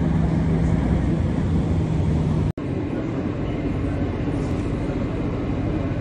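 Steady low rumble of heavy machinery with a hum. It drops out for an instant about two and a half seconds in, then carries on with a higher hum.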